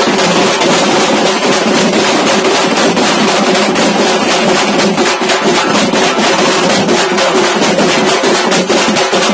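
A street troupe of dhol drums beating a fast, steady rhythm, very loud and close.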